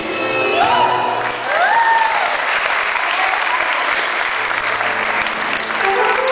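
Audience applauding over Bulgarian folk dance music, with a few short rising-and-falling vocal calls about a second in. The clapping thickens into a dense, steady ovation from about two seconds on.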